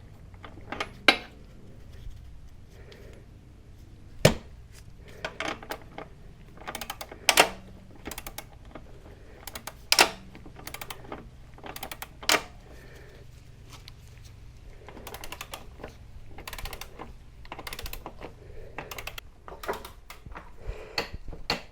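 Click-type torque wrench ratcheting on a motorcycle's rear axle nut as it is tightened toward torque. Runs of quick ratchet clicks, with several louder sharp clicks about every three seconds in the first half and softer clicking after.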